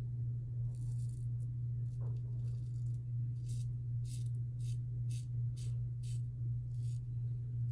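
A steady low hum runs throughout. From about three seconds in there is a run of short, high hissing sounds, roughly two a second.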